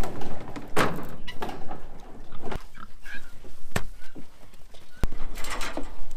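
Domestic pigs grunting in short, irregular bursts as they move about the pen, with three sharp knocks in the middle.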